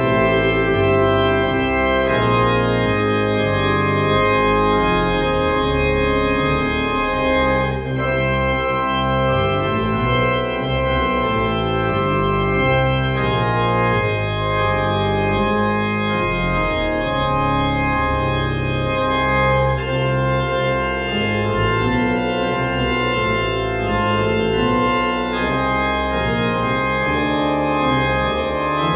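Dobson pipe organ played loud, with full sustained chords over a deep pedal bass, the harmony changing every second or two.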